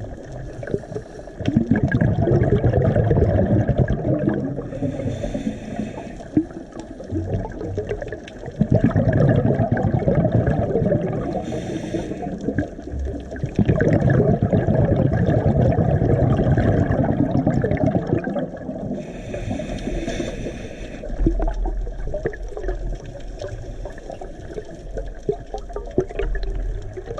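Scuba diver breathing through a regulator underwater: a hiss on each inhale, then a long burst of exhaled bubbles, repeated over several breaths. A low rumble joins in the last few seconds.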